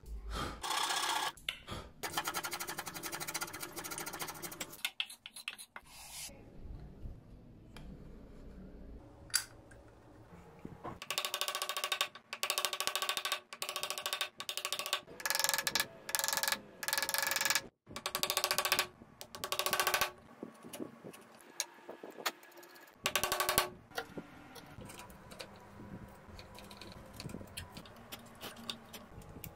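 Bench chisel paring mahogany by hand, trimming proud dovetail pins flush: short scraping cuts come in spells, with a quick run of strokes in the middle and quieter gaps between.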